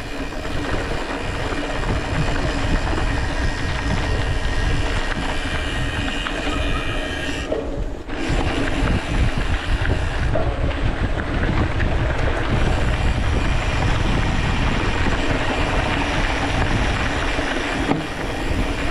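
Mountain bike rolling over a rain-rutted gravel forest road: a steady rumble of tyres on the rough surface and the bike rattling over the bumps.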